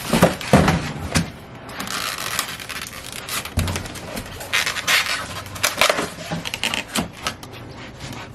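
Plastic parts of a room air conditioner's accordion side panel being handled and slid into their track: irregular clacks, clicks and scraping.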